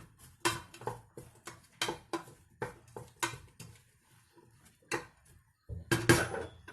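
A metal spoon knocking and scraping against a cooking pot as onion and garlic are stirred, about two sharp ringing clinks a second, with a louder run of clatter near the end.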